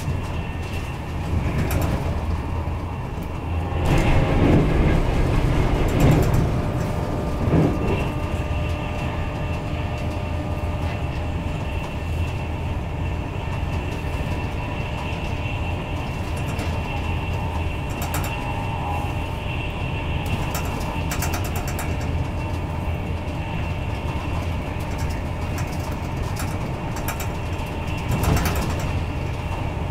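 Steady running rumble and rail noise heard inside a Mark 4 coach of an InterCity 225 train travelling at speed. The noise swells louder for a couple of seconds about four seconds in, and again briefly near the end.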